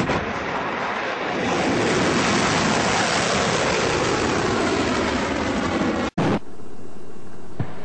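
Ballistic missile's rocket motor at lift-off: a loud, steady rushing noise that starts suddenly. Shortly after 6 s the sound cuts out briefly and gives way to a thinner, steady hiss.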